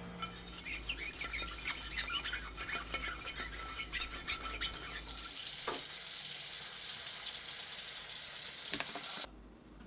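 Dish brush scrubbing a soapy glass baking dish in quick scratchy strokes. About five seconds in, tap water starts running steadily onto the dish as it is rinsed, then cuts off suddenly near the end.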